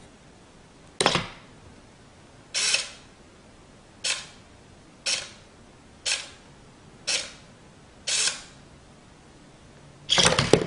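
A series of sharp mechanical clacks, eight in all, coming roughly once a second; the last, near the end, is the loudest and longest.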